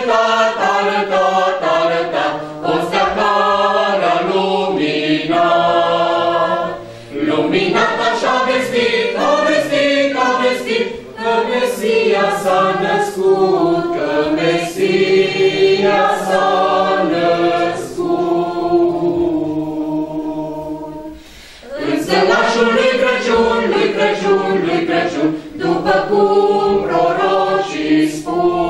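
A group of men and women singing a Romanian Christmas carol (colindă) together, unaccompanied, in long phrases. The singing drops back briefly about two-thirds of the way through before the next verse starts.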